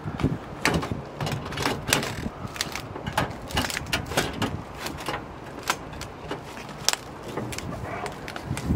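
Metal chimney pipe being handled and pushed into place: a run of irregular clicks, knocks and light clanks of sheet metal against metal.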